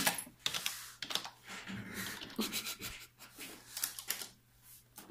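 Typing on a computer keyboard: irregular clicks of keys being pressed.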